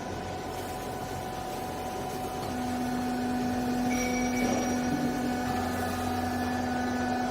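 Hydraulic vertical baler running with a steady machine hum; about two and a half seconds in a strong steady whine comes in and the sound grows a little louder.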